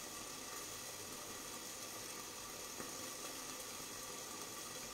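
Steady faint hiss of food simmering in a pan on a gas stove, with a light clink of utensils about three seconds in.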